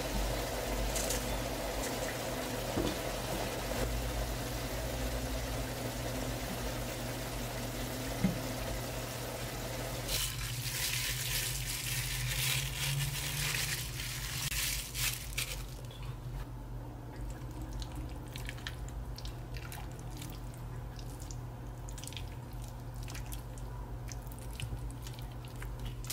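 A steady hiss for about the first ten seconds, then frozen chili-marinated pork sizzling and crackling in a hot frying pan, busiest at first and settling into a softer, continuous crackle.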